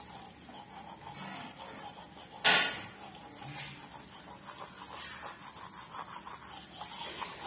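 A child brushing her teeth: faint scrubbing of a toothbrush, with one sharp knock about two and a half seconds in.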